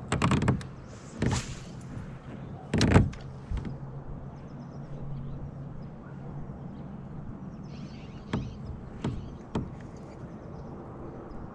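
Clunks and knocks of fishing gear being handled against a plastic fishing kayak, the loudest about three seconds in, then three sharp clicks near the end, over a steady low hum.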